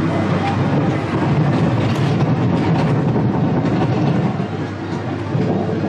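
Amusement-ride car rolling along its rail on the Alice in Wonderland ride: a steady rumble with light rattling knocks.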